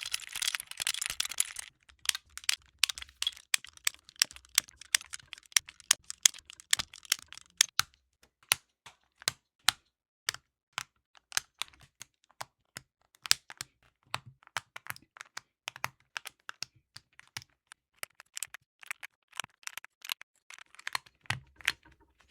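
Clacking of an Epomaker Tide65's mechanical switches (Gateron Jade, MMD Princess and Oil King). A dense, rapid clatter for the first second and a half gives way to irregular single sharp clicks, quick at first and more spread out later.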